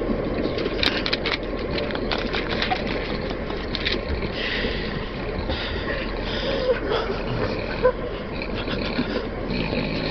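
Steady running rumble and rattling of a moving train carriage, with a man snoring.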